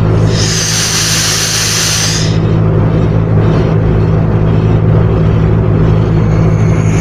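Nitrogen hissing loudly out of the open copper tube end of an air-con condenser coil, blowing dirt out of it; the hiss cuts off a little over two seconds in. A steady low hum sounds underneath.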